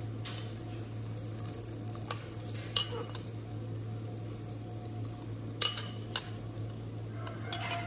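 Tamarind pulp poured and scraped from a bowl into a clay pot of boiled red beans, with four sharp clinks of crockery against the pot, over a steady low hum.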